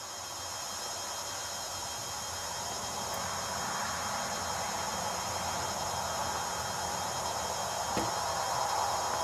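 Crickets chirping in a steady, high-pitched chorus over a steady rushing hiss, with one faint click about eight seconds in.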